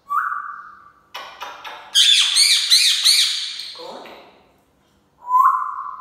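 Parrot calls: a short, steady whistle, then a run of quick clicks and a burst of rapid high chirps. A lower falling note follows, and another whistle comes near the end.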